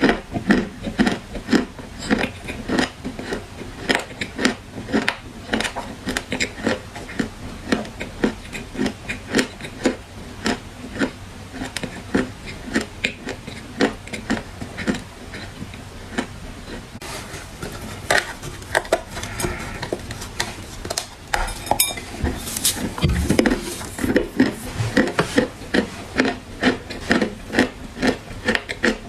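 Crunchy baked black clay being bitten and chewed close to the microphone: a steady run of crisp, brittle crunches, two or three a second.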